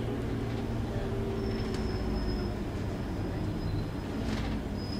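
Double-decker bus driving, heard from the upper deck: steady low engine and road rumble, with a faint high whine that comes in partway through.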